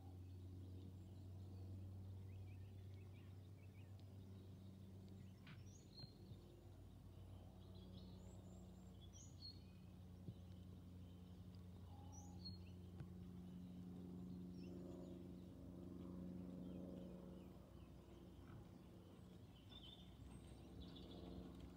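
Near silence: faint outdoor ambience with a steady low hum and a few faint, short, high bird chirps.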